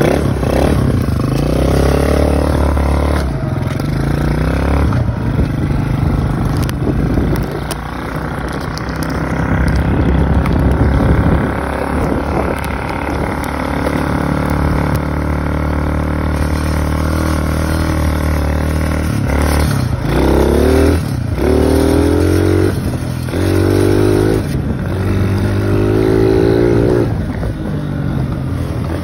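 A 110cc dirt bike engine running while being ridden, heard close up from the rider's chest. It revs up repeatedly, with the pitch climbing several times in a row near the start and again in the last third, and runs steadier in between.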